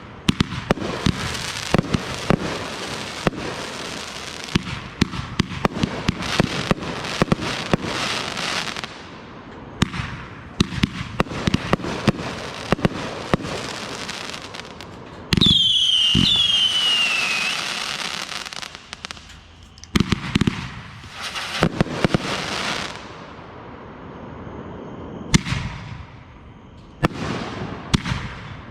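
Consumer fireworks going off: a dense run of sharp cracks and bangs, and about halfway a sudden loud burst with high whistles falling in pitch for a couple of seconds, then more scattered bangs.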